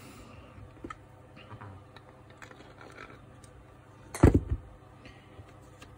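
Parts of a Makita GA5034 angle grinder being handled during reassembly: a few faint clicks, then one loud, sharp knock about four seconds in as the grinder's housing and gear head are brought together on the bench.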